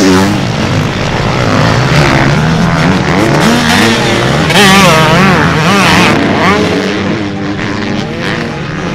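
Several motocross bikes' engines revving hard, the pitch climbing and dropping again and again as riders open and close the throttle and shift gears, loudest about halfway through.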